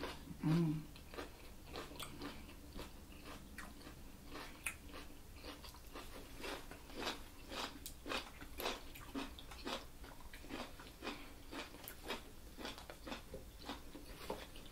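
Close-miked chewing of food, heard as an irregular run of small wet clicks and crunches.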